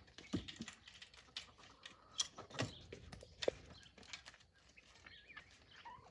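Scattered light clicks and knocks from a wooden, wire-mesh poultry coop door and its latch being handled and swung open, with birds stepping out.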